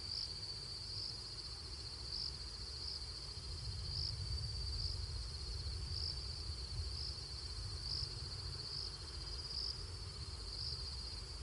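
Night insects, crickets, trilling continuously at a high pitch, with brighter chirps standing out about once or twice a second, over a low rumble.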